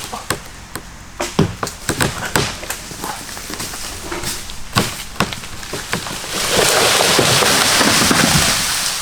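Dead tree cracking and snapping in a run of sharp pops as it gives way. About six and a half seconds in, a loud rushing crash lasts about two seconds as it comes down.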